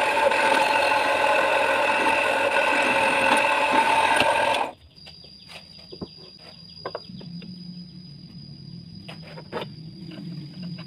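Electric bench drill press running steadily with a strong hum until it cuts off abruptly about four and a half seconds in. Then a few light knocks of wooden boards being handled on a bench, over a thin steady high-pitched whine.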